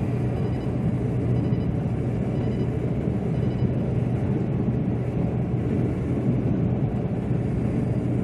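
Steady road and engine noise inside the cab of a Chevrolet Silverado pickup cruising on the highway: an even low drone with a constant hum underneath.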